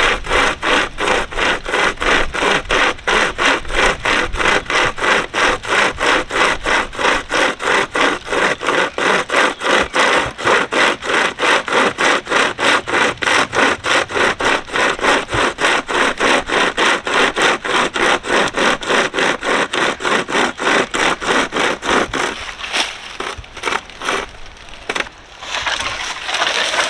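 Pocket chainsaw, a hand-pulled length of saw chain with bidirectional teeth, sawing back and forth through wood in a fast, even rasping rhythm of about three strokes a second. About 22 seconds in, the strokes slow and break up into a few irregular rasps.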